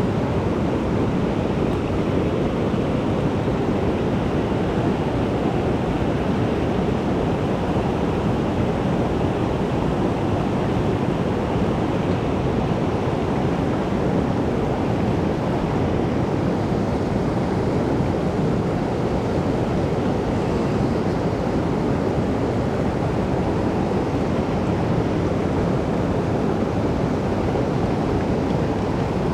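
Steady roar of rushing water from a mountain stream swollen by rain.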